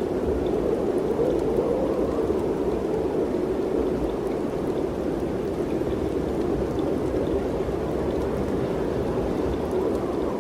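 Mountain wind rushing steadily, a low continuous roar that swells and eases gently, with a few faint ticks scattered through it.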